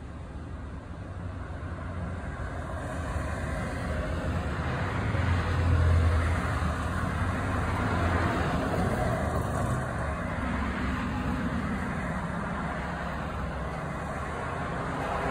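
Road traffic: vehicles passing on the street, the loudest going by about six seconds in with a low engine hum, another soon after, and more approaching near the end.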